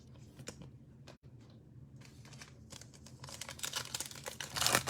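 Plastic trading-card pack wrapper crinkling as it is handled and torn open, faint ticks at first and then a dense rustle from about three seconds in, loudest just before the end.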